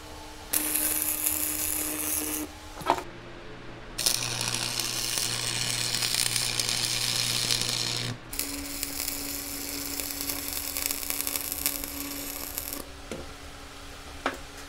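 Stick welder's arc crackling and sizzling as the electrode is struck and run on steel, in three stretches of a few seconds each with brief breaks between them.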